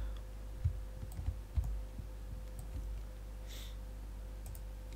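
A few soft clicks from computer mouse and keyboard use, three of them within the first two seconds, over a steady low electrical hum. A short hiss comes about three and a half seconds in.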